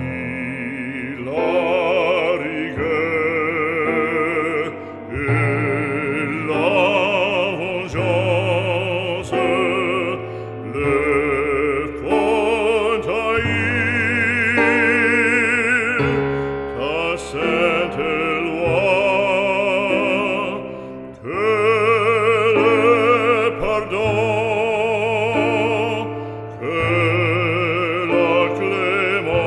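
Classical music: a solo operatic voice sings long held notes with wide vibrato over a sustained orchestral accompaniment with low bass notes.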